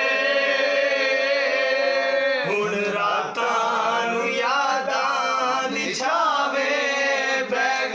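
Men singing a song unaccompanied: a long held note for about the first two and a half seconds, then shorter sung phrases.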